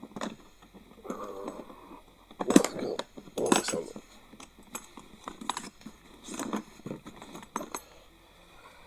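A drill's carry case being opened: a series of clicks and clacks from its latches and lid and the contents being handled, with two louder knocks a few seconds in.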